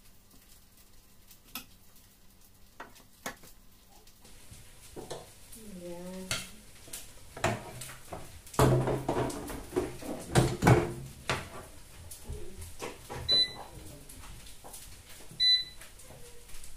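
Air fryer basket handled and pushed into the air fryer, with plastic knocks and clatter, loudest from about eight to eleven seconds in. Then two short electronic beeps from the air fryer's controls as it is set, near the end.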